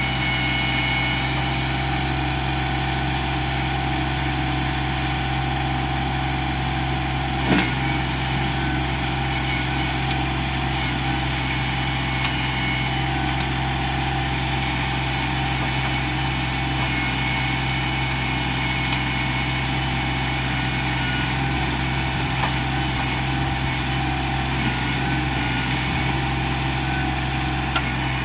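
John Deere 2025R compact tractor's three-cylinder diesel engine running at a steady speed while the 270A backhoe works, with a faint whine over the drone. There is one brief knock a little over seven seconds in.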